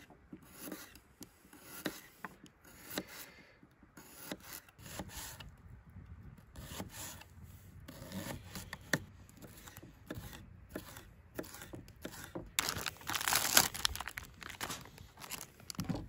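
Kitchen knife slicing red potatoes and an onion on a plastic cutting board: irregular soft knocks as the blade cuts through and meets the board. Near the end, a louder rustle of plastic food wrapping being handled.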